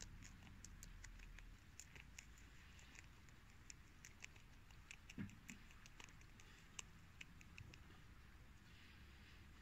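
Rabbit chewing a cabbage leaf: faint, irregular crisp crunching clicks, several a second. A brief soft low thump comes about five seconds in.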